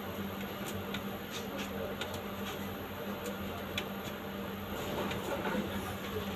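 Large-format copier running, with a steady low hum and scattered light ticks as a wide sheet of paper feeds out.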